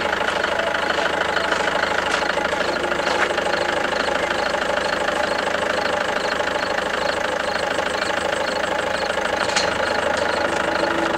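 Car engine idling steadily with a fast, even pulse.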